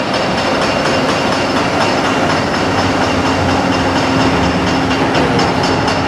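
Light-rail train running along a street-level track, a steady rumble of wheels on the rails with a held tone in the middle of the passage.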